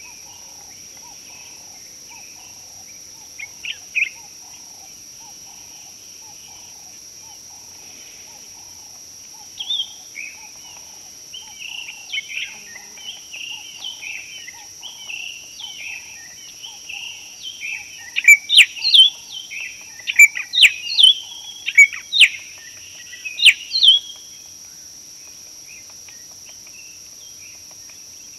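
Wild birds singing and chirping over a steady high insect drone. A brief burst of calls comes about four seconds in; a rapid run of song starts near ten seconds, rises to loud, sharp calls, and stops a few seconds before the end.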